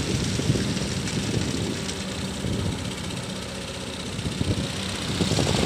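Kobelco hydraulic excavator's diesel engine running steadily while the machine works its boom and bucket, digging mud out of water.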